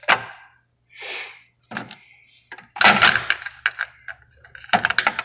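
Metal tool cart drawers sliding on their runners and clunking, with two louder slides about three and five seconds in.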